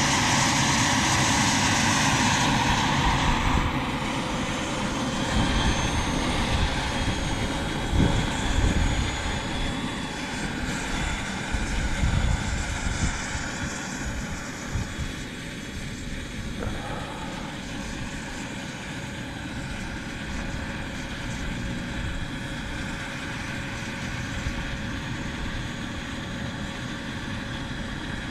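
Vario MD600N model helicopter's small gas turbine running with its rotor turning: a steady whine over a hiss. It is loudest for the first few seconds, then settles to a lower steady level with a few low rumbling swells.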